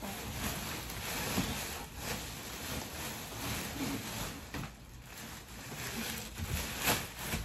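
Plastic packaging wrap rustling and crinkling as a boxed frame is handled and unwrapped, with a sharp knock shortly before the end.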